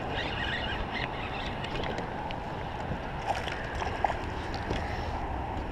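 Steady rushing background noise of a small boat out on open water, with a few faint clicks and taps.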